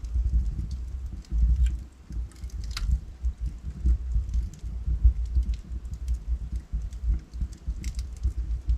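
Wood fire burning in a fireplace: a low rumble of the flames with irregular sharp crackles and pops from the logs, a few louder pops scattered through.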